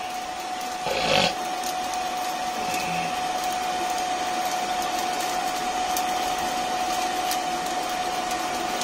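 Handheld electric hair dryer running steadily, a constant whine over a rushing hiss, blowing onto glowing charcoal to fan the fire. A brief louder rush comes about a second in, and a few faint clicks sound through it.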